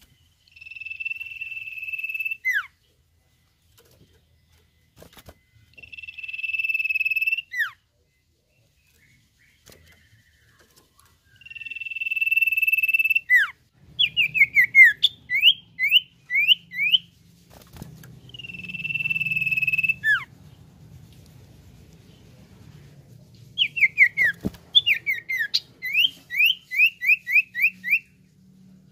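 Common iora (cipoh) singing. It gives long, steady whistles, each swelling in loudness and ending in a quick downward slur, four times in all. These alternate with two runs of rapid rising notes, about three a second.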